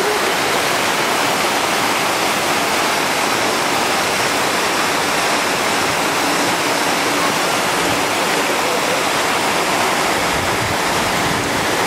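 Loud, even rush of running water.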